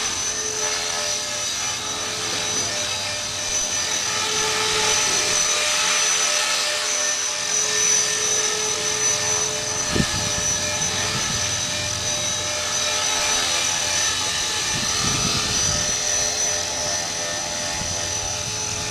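Blade 400 3D electric RC helicopter flying, with a steady high-pitched whine from its motor and drivetrain over the rotor noise. A single sharp click comes about ten seconds in.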